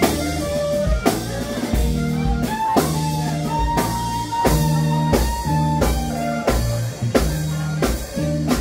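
Clarinet, electric guitar, upright bass and drum kit playing live together, the clarinet holding long notes over regular drum hits.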